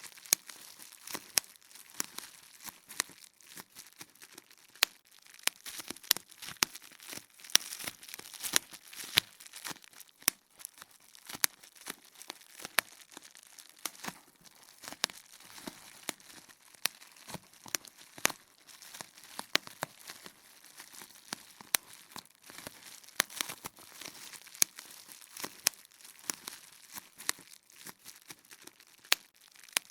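Bubble wrap popping: irregular sharp pops, a loud one every second or two amid many softer ones, with the plastic crinkling in between.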